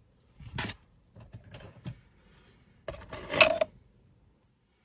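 Metal costume jewelry clinking and rattling against other pieces in a wooden box as pieces are handled, in a few short bursts with the loudest jangle about three seconds in.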